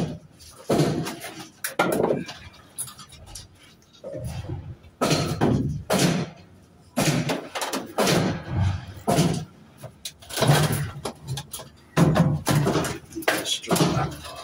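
Scrap metal being unloaded from the back of a van: irregular clanks and crashes as pieces of metal are pulled out and dropped, each with a short ring.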